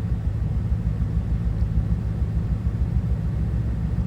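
Steady low rumble with a low hum, unchanging throughout.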